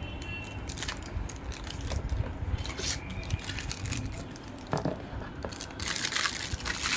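Packaging being handled and unwrapped: scattered clicks and knocks, then continuous crinkling of packaging near the end.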